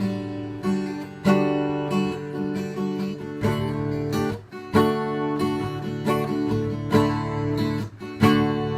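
Acoustic guitar strummed in chords, a new strum roughly every second, as the instrumental opening of a song being played.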